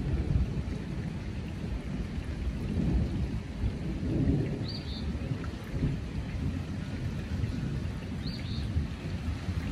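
Thunder from cloud-to-cloud lightning rumbling low and rolling, swelling a couple of times. A northern cardinal's short high notes come through about halfway and again near the end.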